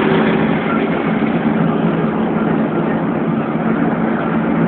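Steady engine hum and road noise of a car driving on a highway, heard from inside the cabin through a cell phone's microphone.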